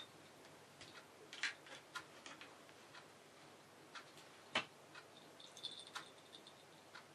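Faint, scattered clicks and taps of cats pawing at a pussy willow branch and a basket bed, with one sharper click about four and a half seconds in. Near the end a small collar bell tinkles briefly as the ginger cat rises to reach for the branch.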